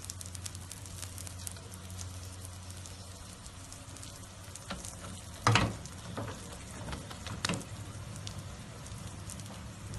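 Feteer pastry frying in ghee on a hot metal tray, with a steady fine sizzle and crackle. There is one sharp knock about halfway through and a lighter one a couple of seconds later.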